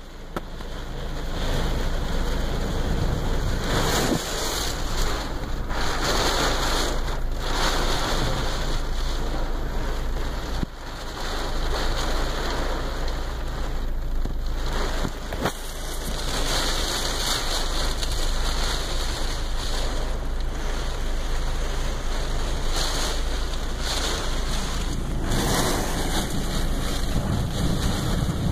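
Heavy storm rain and wind beating on a car's roof and windows, heard from inside the cabin. The noise swells in strong gusts every few seconds.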